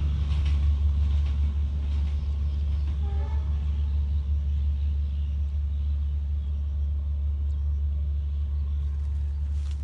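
Low rumble of a passing passenger train receding down the line, slowly fading away.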